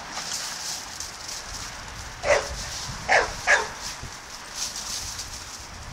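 Pit bull barking: three short barks, one a little over two seconds in and then two in quick succession about a second later.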